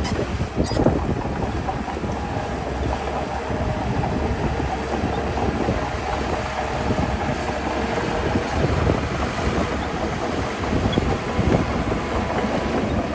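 Heavy diesel earth-moving machinery running steadily, a deep engine rumble with irregular metallic clanking.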